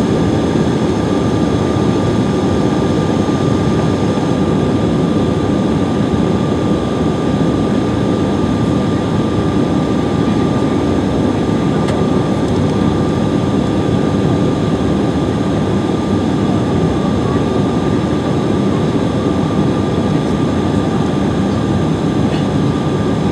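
Steady cabin noise inside a Bombardier CRJ700 regional jet on approach: the rush of airflow and its rear-mounted General Electric CF34 turbofans, with a constant high whine over it.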